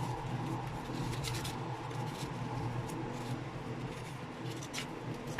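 Paper instruction sheet being unfolded and handled: soft rustling with a few light crinkles, over a steady low hum.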